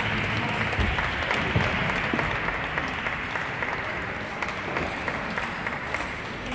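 Applause, a dense patter of hand-clapping that tapers off near the end, greeting the end of a table tennis match.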